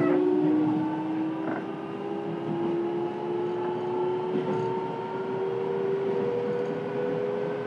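Hitachi two-level IGBT VVVF inverter and traction motors of a Fukuoka City Subway 1000N series train, heard aboard: a whine of several tones climbing slowly in pitch over the running rumble as the train gathers speed.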